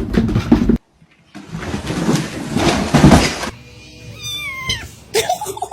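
A loud rushing noise for about two seconds, then a cat meowing a few times, each meow falling in pitch, near the end.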